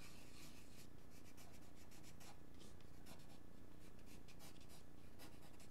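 Pencil scratching on drawing paper in many short, quick strokes while sketching, faint.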